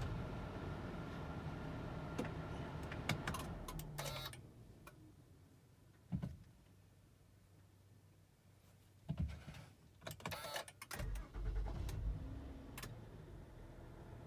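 2015 Honda Odyssey's V6 engine idling, then switched off about four seconds in. A few sharp clicks from the key and ignition follow in the quiet. About eleven seconds in, the starter cranks, the engine catches and it settles back to idle.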